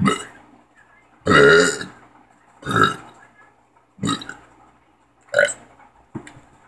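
A person burping deliberately, about six burps in a row with short gaps between them; the longest and loudest comes just over a second in.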